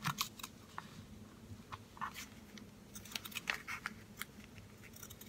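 Scissors cutting through fabric: faint, short snips at irregular intervals.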